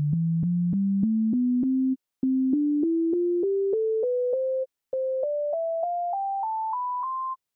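Pure sine-like test tones playing a C major scale upward, about three notes a second with a small click at each note's start. The scale runs in octaves with a brief gap between each, climbing from about 130 Hz to about 1 kHz, and the next octave begins near the end.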